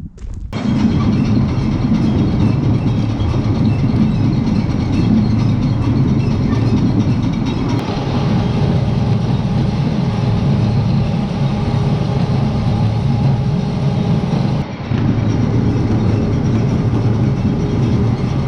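Potato grading line running steadily and loudly: the grader, conveyors and elevator carrying potatoes, with the tractor-driven generator that powers them.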